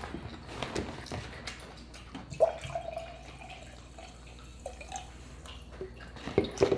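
Close-miked chewing and mouth sounds: wet clicks and smacks scattered throughout, a brief steady tone about two and a half seconds in, and a cluster of louder clicks near the end.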